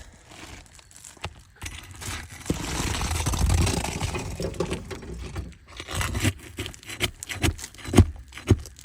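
Hand tools sliding and clattering on asphalt roof shingles: a scraping rush followed by scattered knocks and clinks.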